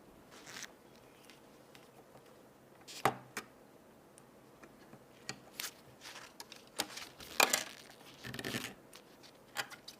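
Product packaging being handled: scattered clicks, scrapes and short rustles of cardboard and plastic, the loudest knocks about three seconds in and a second or so before the end of the main flurry, with a longer rustle near the end.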